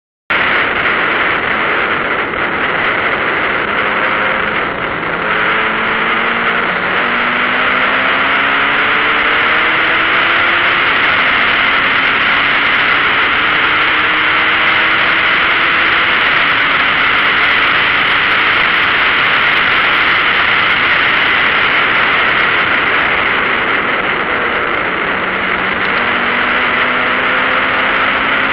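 In-car sound of a Toyota Supra at track speed: a loud, dense rush of wind and road noise, with the engine note climbing in pitch several times under acceleration, most clearly in the first dozen seconds and again near the end.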